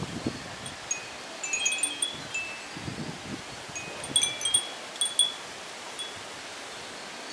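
Japanese wind chimes (fūrin) ringing irregularly in the breeze: scattered bright pings in two clusters, a little over a second in and again around four to five seconds in. Gusts of wind rumble on the microphone underneath.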